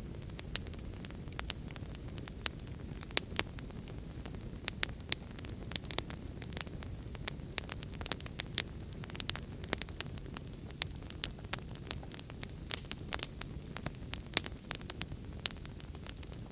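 Fire burning: irregular sharp crackles and pops over a steady low rumble.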